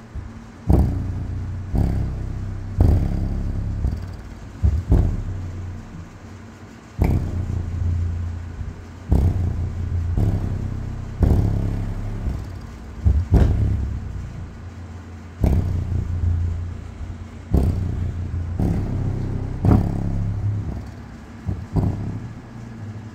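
Deaf Bonce Apocalypse 8-inch subwoofer playing in free air: deep bass hits with sharp attacks, each dying away, about one every two seconds, stopping shortly before the end. The amplifier's gain has been turned down to check for the noise the owner put down to clipping.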